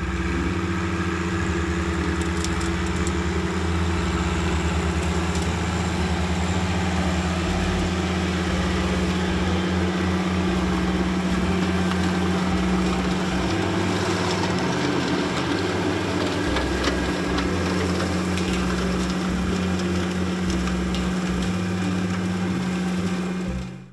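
John Deere 1025R subcompact tractor's diesel engine running steadily with a constant hum, cutting off sharply at the very end.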